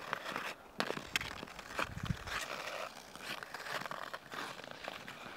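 Ice skate blades scraping and clicking on frozen lake ice: an irregular run of short scrapes and sharp ticks, with a brief low rumble about two seconds in.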